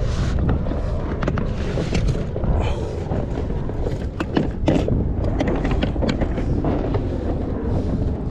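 Wind buffeting the microphone as a steady low rumble, with frequent short clicks and knocks throughout.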